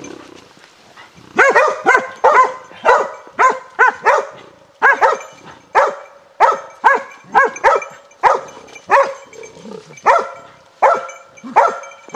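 Hunting dog barking over and over at a downed wild boar, about two sharp barks a second, starting about a second and a half in.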